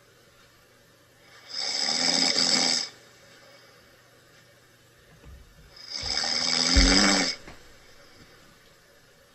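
Snoring during sleep: two snores, each a little over a second long, about four seconds apart.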